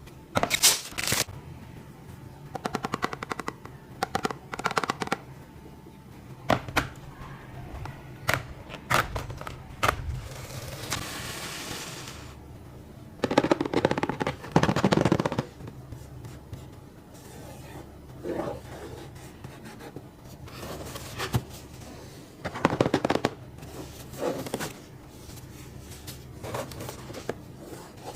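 Packaging being handled and opened by hand: runs of rapid sharp clicks and crackles from plastic and cardboard, with a hissing crinkle for a couple of seconds near the middle and louder bouts of rattling later.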